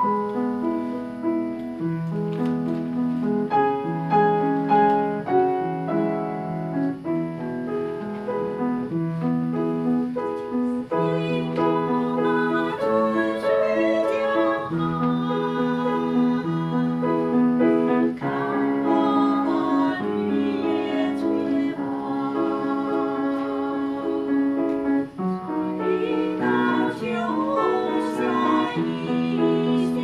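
Piano playing a slow accompaniment, joined about eleven seconds in by two women's voices singing a duet with vibrato.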